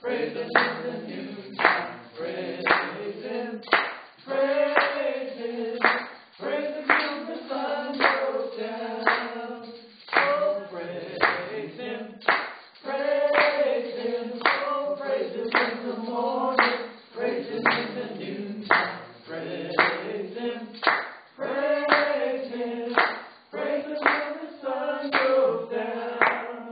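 Voices singing a worship song together without instruments, with a steady rhythm of hand claps keeping the beat.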